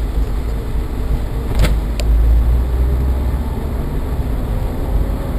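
Steady low rumble of a road vehicle under way, heard from inside it, with two short sharp clicks about a second and a half and two seconds in.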